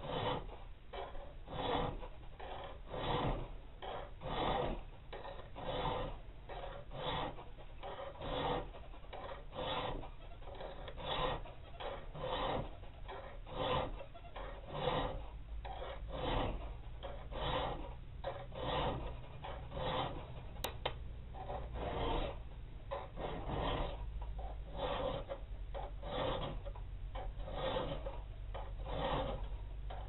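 Thin round file rasping back and forth across the steel spine of a balisong blade held in a vise, cutting rope-pattern filework notches in a steady rhythm of strokes, a bit under two a second. A single sharp click about two-thirds of the way through.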